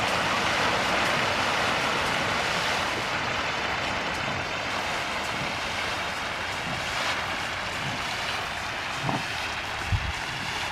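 Steady splashing hiss of a dense mass of farmed catfish thrashing at the pond surface in a feeding frenzy, with pellet feed spattering onto the water. A couple of soft low thumps sound near the end.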